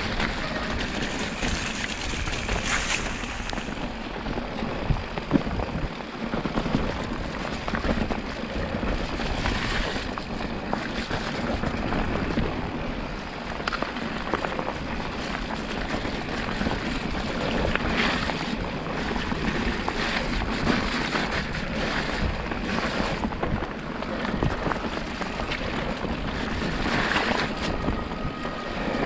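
Mountain bike descending a wet trail in the rain, heard through a GoPro microphone: a steady rush of wind and tyre noise, broken by frequent knocks and rattles from the bike over rough ground.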